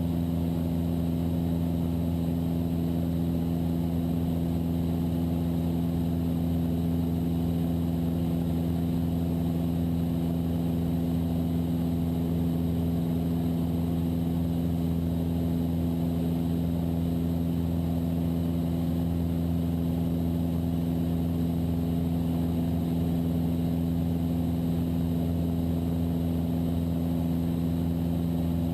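Cessna 172's piston engine and propeller running steadily at climb power, a constant drone that holds the same pitch throughout.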